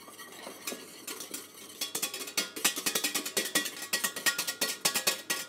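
Wire whisk beating a sabayon of egg yolks and reduced rhubarb wine in a stainless steel saucepan, its wires clicking rapidly against the pan. The whisking gets going about two seconds in, several strokes a second.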